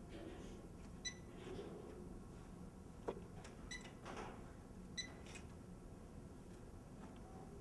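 Three short electronic beeps from the keypad control panels of powered mobile library shelving, with a sharp click between the first two.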